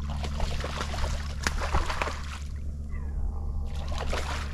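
A hooked fish thrashing and splashing at the water's surface beside the boat, with irregular splashes and water sloshing. A steady low hum runs underneath.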